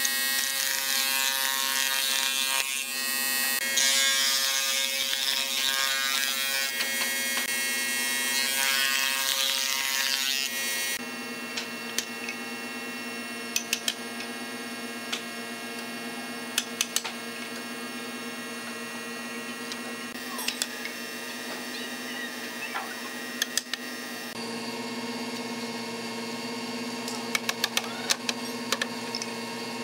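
Spindle moulder (wood shaper) cutting a wooden board: a loud, hissing machine noise over a steady motor hum, which ends about eleven seconds in. After that a quieter steady hum goes on, with scattered light wooden knocks as frame pieces are fitted together by hand.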